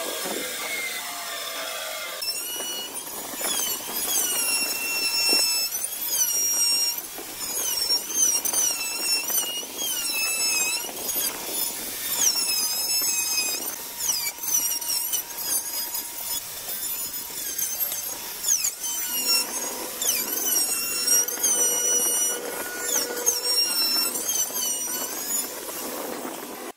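A handheld electric router cuts along a curved wooden door arch. Its high whine repeatedly dips and recovers in pitch as the bit bites into the wood. For the first two seconds a spindle moulder is cutting before the router takes over.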